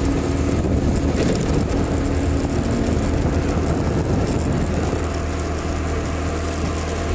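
Motorcycle engine running steadily at cruising speed, with wind noise rushing over the microphone.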